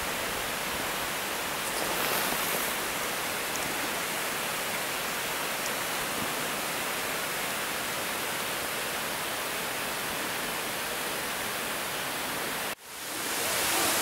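Steady rush of a mountain waterfall, an even hiss of falling water. Near the end it cuts out for a moment and comes back louder.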